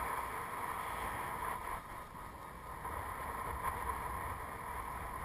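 Steady rush of airflow over the camera's microphone as a paraglider flies.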